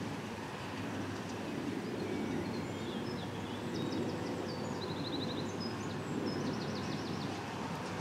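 Case IH Puma 150 tractor running steadily under load, pulling a New Holland BR7050 round baler as it picks up a hay windrow. Small birds chirp over it midway, including one quick trill.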